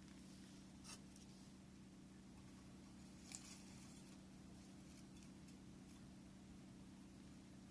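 A wood fire crackling faintly, with a few soft pops, the clearest about one and three seconds in, over a steady low hum.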